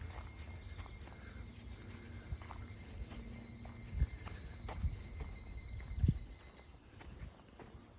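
Steady high-pitched chorus of insects shrilling, with a few footsteps thudding on the path, the loudest about four and six seconds in.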